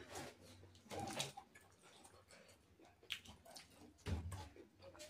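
Faint eating and tableware sounds: fingers mixing rice on ceramic plates, with a few soft clicks and knocks scattered through, one as a metal spoon scoops from a serving plate near the end.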